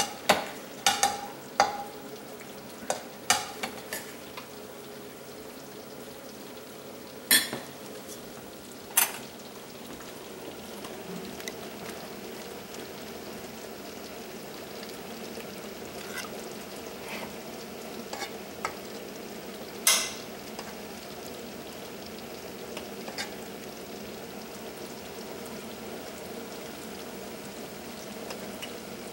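A metal spoon clinks against a skillet and a china plate as rice is topped with gravy and steak: a quick run of sharp clinks in the first few seconds, then a few single ones spaced far apart. Under them runs a steady sizzle of gravy simmering in the pan.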